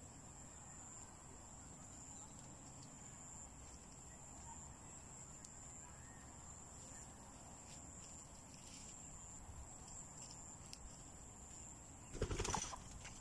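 Faint night background with a steady high insect trill; about a second before the end, a short loud flurry of a chicken's wings flapping.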